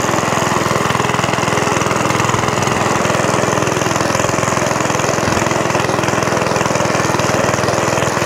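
Suffolk Corporation Mk2 1960s sidewheel cylinder mower's small petrol engine running steadily at working throttle. It drives the wheels and the cutting cylinder through wet grass.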